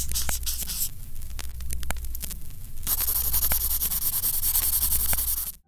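Marker-scribbling sound effect: a scratchy hiss of pen strokes with scattered clicks, in two spells, over a steady low hum; it cuts off abruptly near the end.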